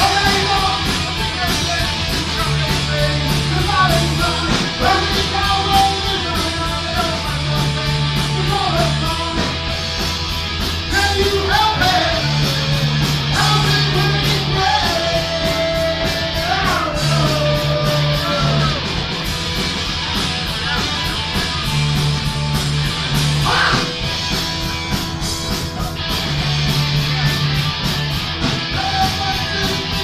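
Live rock band: a man singing into a microphone over electric guitar, with a repeating low riff and a steady beat.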